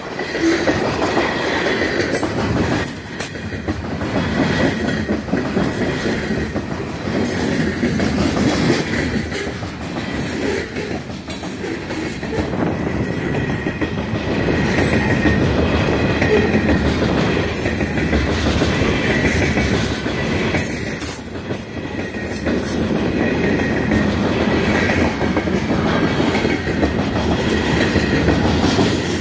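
A slow freight train's covered hopper cars rolling past on steel wheels: a steady rumble with clatter over the rail joints, and a faint high wheel squeal that comes and goes.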